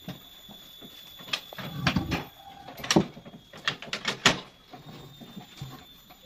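Irregular sharp knocks and clatters, the loudest about three and four seconds in, with a few duller thumps around two seconds and a faint steady high tone underneath.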